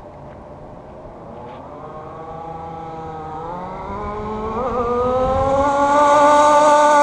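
FG Modellsport 2WD RC car's two-stroke petrol engine running at speed, its note climbing in pitch and growing steadily louder from about two seconds in.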